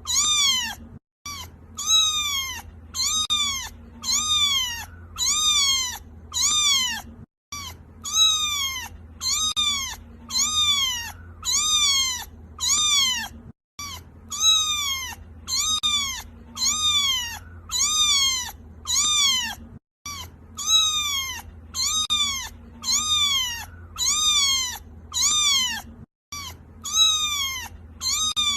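Kitten meowing over and over in high-pitched cries, each rising then falling in pitch, about three every two seconds. The same short recording is looped, with a brief dropout about every six seconds.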